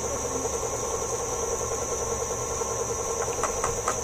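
KitchenAid Artisan stand mixer running steadily, its motor humming with a high whine. From about three seconds in there is a quick run of light knocks, about four a second.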